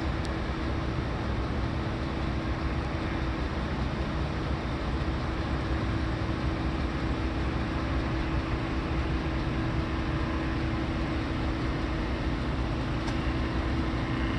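Tugboat's diesel engine running with a steady low drone as it moves empty barges along the river.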